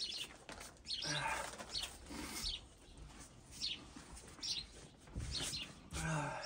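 Small birds chirping: short, high, falling chirps repeating roughly once a second.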